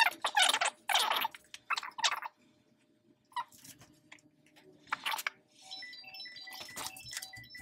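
Philips standing garment steamer hissing in short, loud bursts of steam through its head in the first two seconds, with quieter hisses and clicks after. Near the end there is a faint run of short, high, repeating tones over a low hum.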